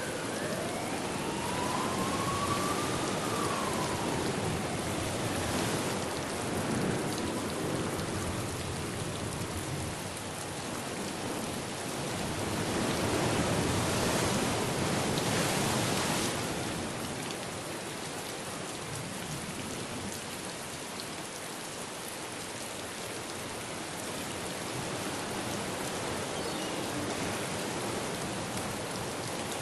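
Steady rain falling, swelling heavier about halfway through. In the first few seconds a faint tone glides up and then back down.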